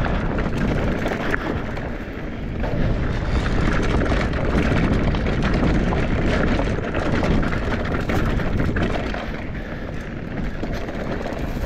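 Mountain bike descending a dirt and rock trail at speed: tyres rolling over gravel and rocks, with frequent clicks and rattles from the bike, over a steady rush of wind on the microphone.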